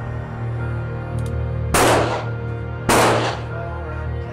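Ruger Single-Six .22 rimfire revolver firing two shots about a second apart, the hammer fanned by hand, each shot ringing out briefly. Background music plays underneath.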